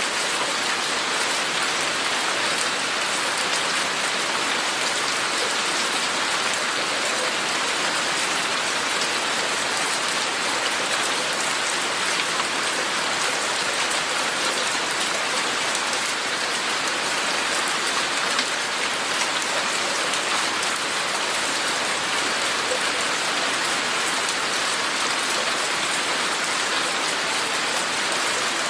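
Steady rain falling, an even hiss of many drops hitting a surface.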